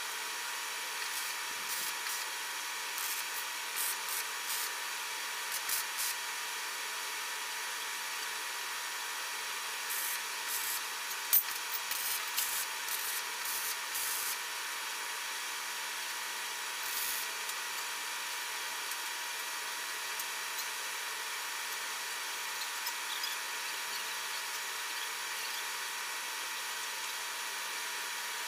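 MIG welding on a steel frame: short bursts of arc crackle, thickest a little before the middle, over a steady hiss.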